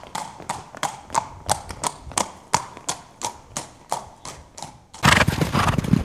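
Sampled recording of a horse's hooves clip-clopping at a walk, about three hoof-falls a second, then a louder, rough burst of noise about five seconds in.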